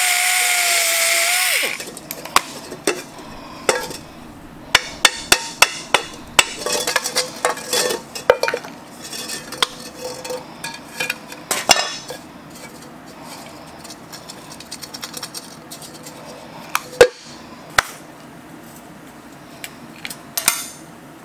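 A hand-held power tool runs briefly with a steady high whine against a rusty grill bowl, then stops. Rusty metal grill parts are then knocked and clanked as they are pried and pulled apart, and near the end a ratchet wrench clicks on a bolt.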